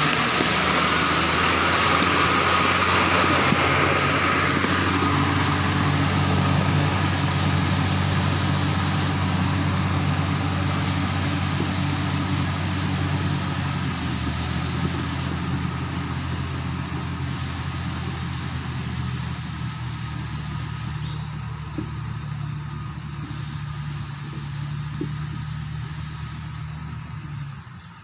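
Motor grader's diesel engine running steadily as the grader drives away, growing gradually fainter.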